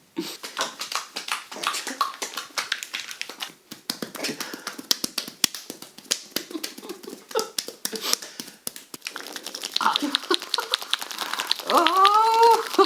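Fast, crackling taps and rubs of hands working over the head and ears, heard close up as a dense run of clicks. Near the end a drawn-out moaning voice rises and falls in pitch.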